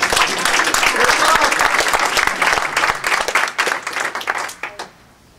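Audience applauding: many hands clapping densely, then thinning out and dying away near the end.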